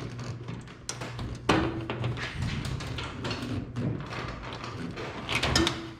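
Scattered knocks, taps and clicks of parts being handled in a workshop, with the loudest knocks about one and a half seconds in and near the end, over a steady low hum.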